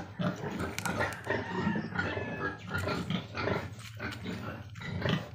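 Newborn piglets grunting and squealing in a rapid run of short calls while one is picked up and held by hand.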